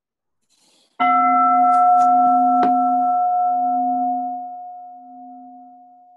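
A meditation bowl-bell struck once, ringing with several tones at once; the lowest tone pulses, and the ring fades slowly over several seconds. A short click sounds about a second and a half after the strike.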